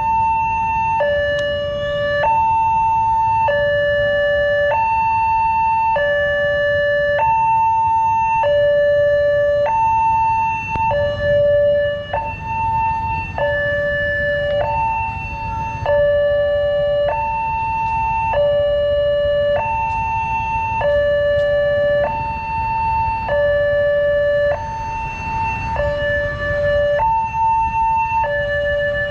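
Railway level-crossing alarm sounding, the common two-tone type: a higher and a lower note alternate, each held about a second, over a low rumble of road traffic.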